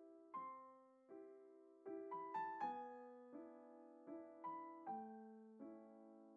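Soft background piano music: slow chords and single notes struck about every three-quarters of a second, each fading away, with a quick run of rising notes a couple of seconds in.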